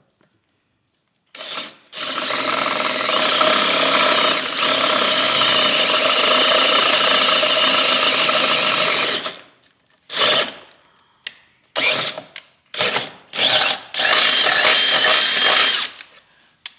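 Handheld power drill boring a pilot hole into the steel body of a VW Beetle, right on a weld: one long steady run of several seconds, then a series of short bursts on the trigger.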